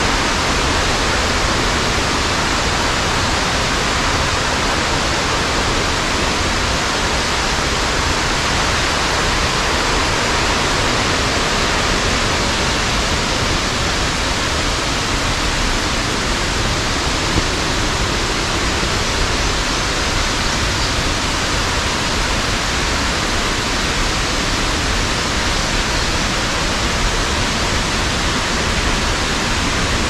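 Steady rushing roar of a nearby waterfall, even and unbroken throughout.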